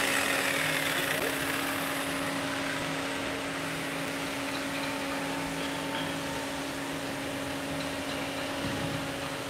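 Steady mechanical hum with an even hiss and a faint constant tone, easing off a little over the first couple of seconds.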